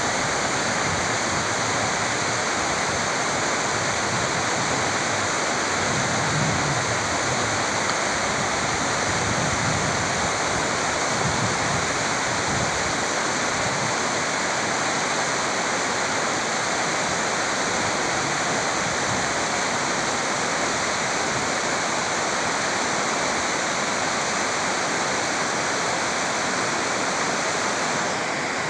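Fast mountain stream rushing over rocks, a steady, unbroken sound of running water.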